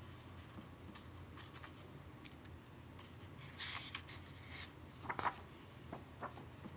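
A page of a hardcover picture book being turned by hand: faint paper rustling and soft handling clicks, with a brief rustle about halfway through and a couple of soft knocks a second or so later.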